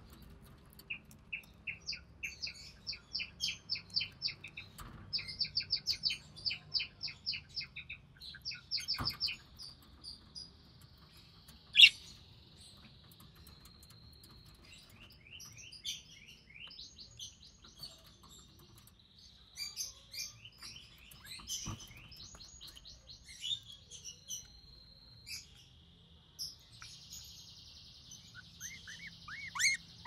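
Budgerigars chirping in quick runs of short, high cheeps, with stretches of a thin, steady buzzing call a third of the way in and near the end, as a mother budgie feeds her chick. A few sharp knocks sound through it, the loudest about twelve seconds in.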